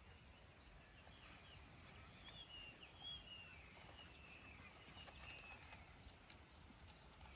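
Faint, high, wavering chirping call from an animal, running from about a second in until near the end, over a low background rumble.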